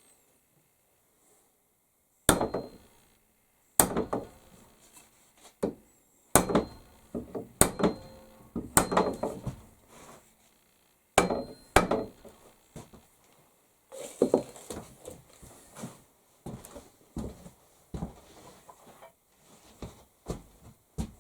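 Hammer blows on metal and wood, with a short metallic ring after each: about eight hard strikes at irregular intervals in the first twelve seconds, then lighter knocks and clatter.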